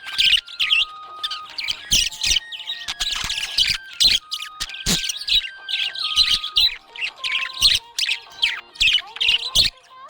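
Budgies chirping busily, a constant run of short, rapid calls with hardly a gap. Underneath, a slow melody of held notes steps from pitch to pitch.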